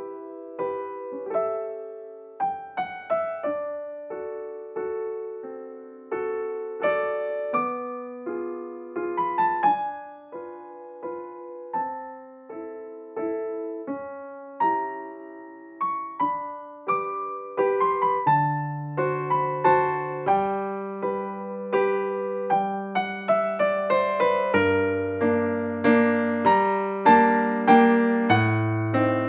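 Gentle solo piano background music: a melody of plucked-sounding struck notes, with low bass notes joining partway through.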